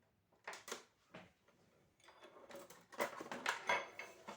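Kitchen utensils knocking and clattering, a few separate clicks and then a quick cluster near the end, as a spoon and salt container are handled to measure salt into the pot.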